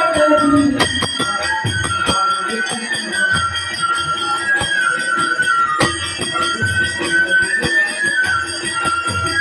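Instrumental kirtan music: a flute plays a stepping melody over regular hand-drum strokes and steady jingling of small hand cymbals.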